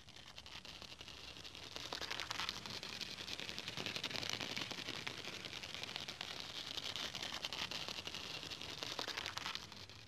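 A centipede's footsteps, picked up by a contact microphone on the sheet it walks across: a rapid, dense patter of tiny ticks, fainter at first and growing louder about two seconds in, fading just before the end.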